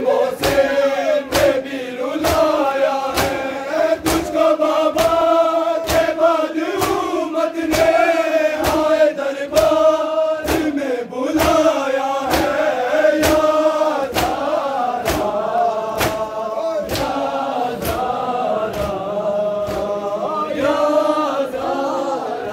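A crowd of men chanting a nauha (Shia lament) in unison, over a steady beat of hands striking chests in matam, about one and a half strokes a second.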